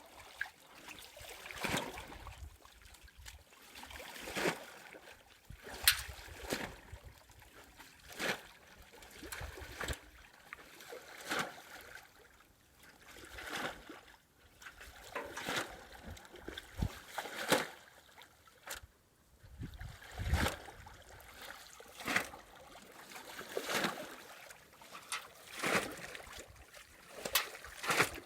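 Water splashing in a slow, uneven rhythm, a short splash about every one to two seconds, over a faint hiss.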